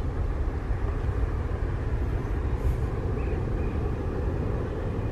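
Airbus A380's four jet engines rumbling steadily at takeoff power as the airliner climbs away after departure.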